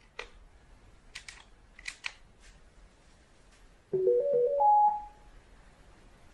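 Short electronic chime melody of about five notes stepping upward in pitch, lasting about a second, from a Samsung CW-21Z503N CRT television's power jingle. A few faint clicks come before it.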